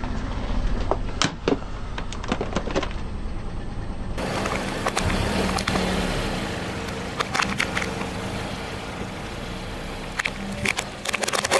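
A car rolling slowly over objects and crushing them under its tyre, with sharp cracks and crunching snaps over the low rumble of the engine and tyres. After an edit about four seconds in, a new crush starts, with scattered cracks and a burst of crunching near the end.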